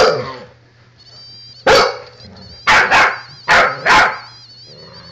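A puppy barking up at an older dog in play: six short, loud barks, one at the start, one a little later, then two quick pairs. A fainter high wavering whine runs underneath.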